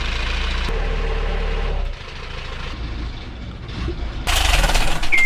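Brand-new Yanmar 4JH5E four-cylinder marine diesel running at idle in the boat's engine compartment on its first run. The sound drops about two seconds in and comes back much louder near the end.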